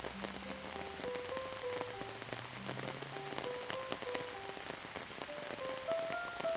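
Steady rain with many distinct drops striking a surface, under a slow, soft instrumental melody of held notes stepping up and down. A low bass note sounds under the melody during the first half and then drops out.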